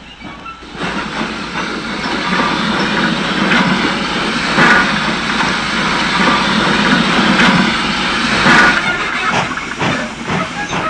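A 0-6-0 saddle-tank steam locomotive at work: a steady hiss of steam that swells up about a second in, with a few louder puffs a second or more apart.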